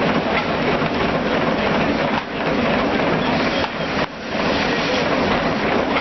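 Old sawmill machinery running steadily, a loud dense mechanical clatter, with brief lulls about two and four seconds in.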